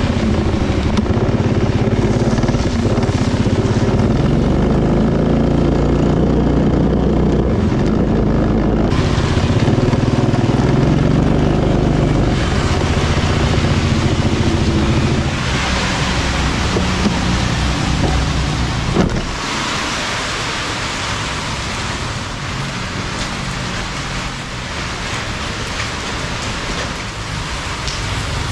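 Motorbike engine running while riding, with wind rushing over the microphone. The engine note shifts about halfway through, and after a short click about two-thirds in the sound drops a little.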